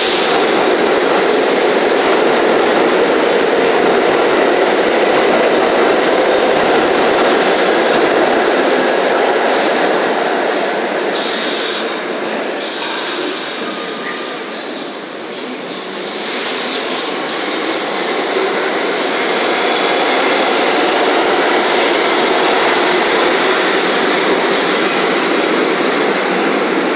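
R62A subway train at the platform and pulling out, its motors and wheels giving a loud, steady running noise. A short hiss of air is heard partway through.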